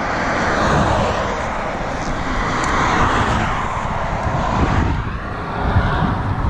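Cars passing on a road, their tyre and engine noise swelling over the first few seconds and then easing. Wind rumbles on the microphone in the second half as the bike rolls across the road.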